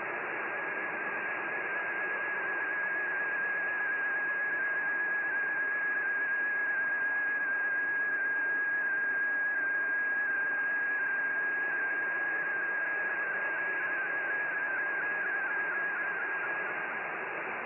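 MFSK digital picture transmission received on a shortwave radio in AM mode: a single steady whistle-like tone that wavers slightly in pitch as it carries the image, over constant band hiss and static. The tone weakens near the end, leaving mostly hiss.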